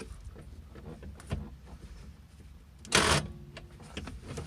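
Metal handling noise as a differential is jacked up into its mounts under the car: faint clicks over a low rumble, with one loud short scrape about three seconds in.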